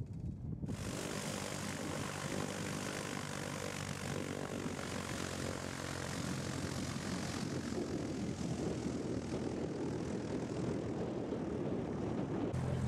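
Light single-engine propeller plane's engine starting less than a second in, then running steadily with the propeller turning.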